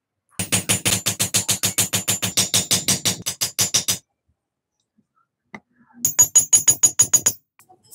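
A small hammer rapidly tapping steel rivets to peen them over on a pair of locking pliers. The taps ring metallically at about eight or nine a second in two runs, a long one and then a shorter one near the end.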